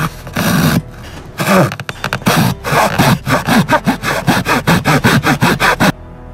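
Small folding handsaw cutting across a thin wooden board: a few slow strokes, then quick short strokes about five a second, stopping just before the end as the cut goes through.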